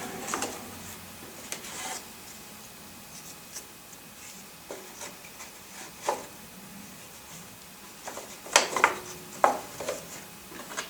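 Wooden frame side bars being handled and set down: light rubbing and scattered wooden knocks, with a quick run of sharper knocks about two thirds of the way through. A power tool's motor dies away in the first moment.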